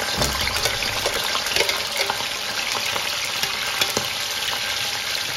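Pieces of dry smoked catfish sizzling steadily in hot oil in a wok, with scattered crackles and pops.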